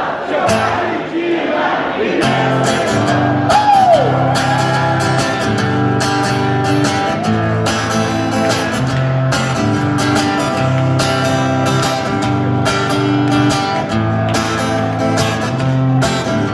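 Live rock band playing a song's instrumental intro: a steady drum beat with bass and electric guitar.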